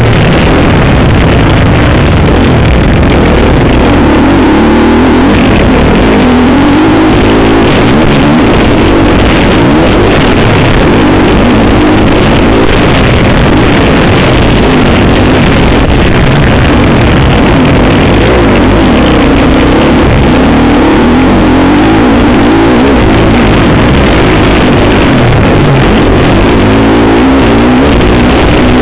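Motocross bike engine heard very loud from a camera mounted on the bike, revving up and falling back again and again as the rider works the throttle and gears around the track.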